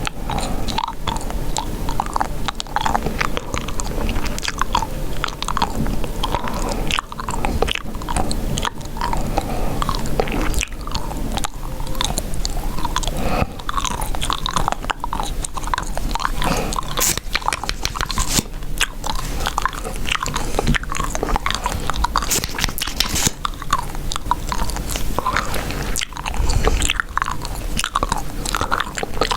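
Chewing gum: a steady run of short mouth clicks and smacks.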